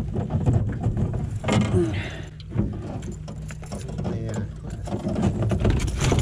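Fishing reel being cranked with its gears whirring, reeling in a hooked bass.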